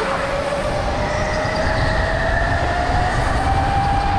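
Go-kart running on an indoor track, heard from on board: a steady motor whine that rises slowly in pitch as the kart picks up speed, over a constant low rumble.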